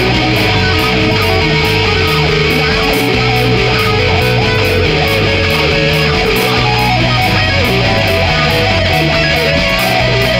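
Instrumental rock music led by guitar over a steady drum beat, with no vocals. A held note gives way to a higher one about seven seconds in.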